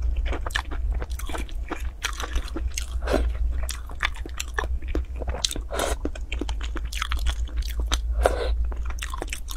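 Close-miked eating of spicy noodle soup: wet chewing and mouth clicks throughout, with a slurp of noodles near the end. A steady low hum sits underneath.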